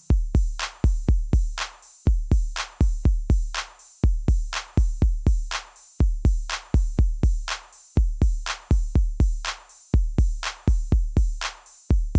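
Background electronic music: a drum-machine beat of deep, booming kick drums with sharp clicks, repeating in quick groups of hits.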